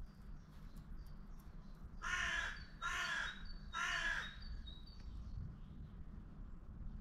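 Carrion crow cawing three times, about a second apart, each caw harsh and about half a second long.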